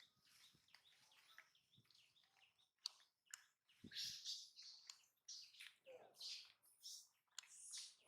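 Faint, short, high-pitched animal chirps in a loose string, starting about three seconds in, with a few sharp clicks among them.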